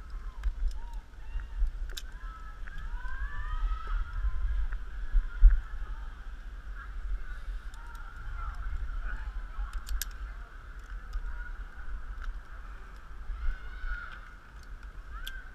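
Zipline trolley's pulleys running along a steel cable: a steady whine whose pitch wavers up and down, with a few clicks and wind rumble on the microphone.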